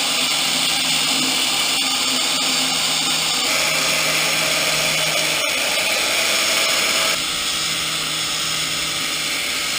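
Electric grinder running steadily while grinding down a motorcycle exhaust pipe, a loud hiss over a constant low hum. About seven seconds in, the pitch and level drop slightly.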